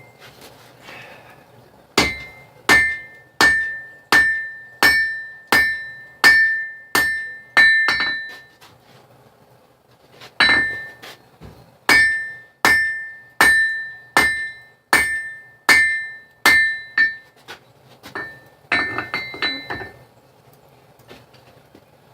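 Blacksmith's hand hammer striking hot steel on an anvil while drawing out a forged knife blade, each blow followed by a clear metallic ring. Two runs of steady blows at about one and a half a second, split by a short pause, then a quick flurry of lighter taps near the end.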